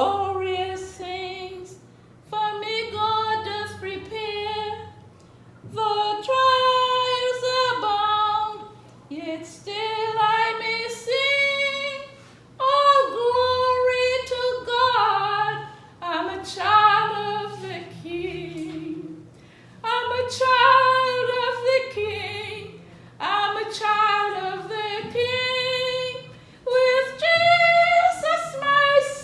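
A woman singing a hymn solo, in phrases of a few seconds with short breaks between them.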